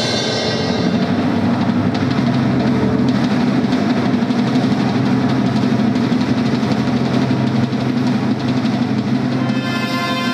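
Steady low rumble of processional music, with bright trumpet notes coming in near the end.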